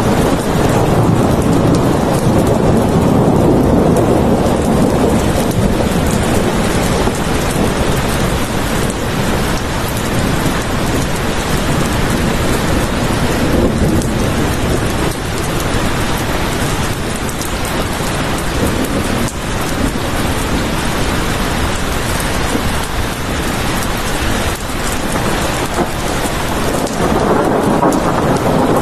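Heavy steady rain pouring down, with deep rolls of thunder swelling near the start and again near the end.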